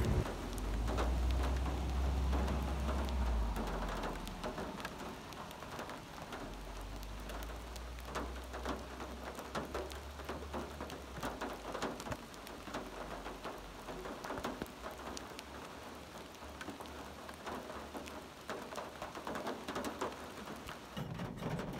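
Rain falling in a forest, with many separate drops striking close by as sharp taps. A low rumble runs under it through roughly the first half.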